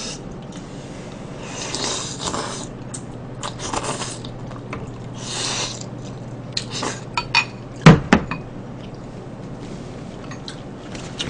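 Eating noises at a table: spoons and chopsticks clicking and clinking against ceramic bowls and plates, with several short hissy noises in the first half. Two sharp knocks about eight seconds in are the loudest sounds, as a bowl is set down on the table.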